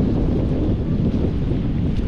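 Wind buffeting the microphone: a loud, fluttering rumble with no distinct events.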